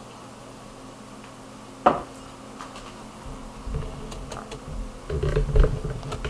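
A single sharp click about two seconds in, then soft rustling and low thumps of a person stirring and pushing herself up on a cushioned sofa.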